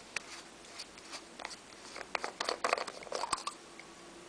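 Plastic clicking and rubbing as the yellow end cap is worked off the handle of a Stanley ratcheting screwdriver to open its bit storage. The sounds are scattered at first and bunch up into a quick run of clicks about two to three and a half seconds in, ending with one sharp click.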